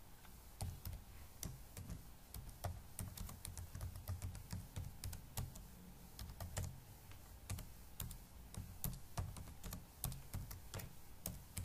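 Typing on a computer keyboard: a quick, irregular run of key clicks that goes on without a break.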